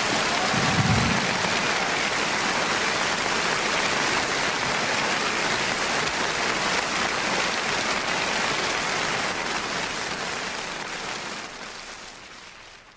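Steady rain-like rushing hiss, with a brief low rumble about a second in, fading out over the last couple of seconds.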